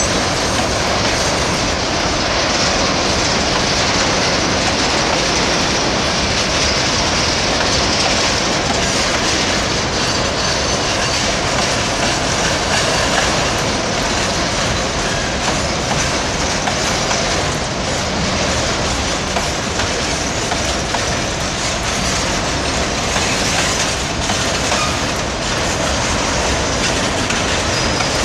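Freight train wagons rolling past at close range: a steady, loud noise of steel wheels running over the rails.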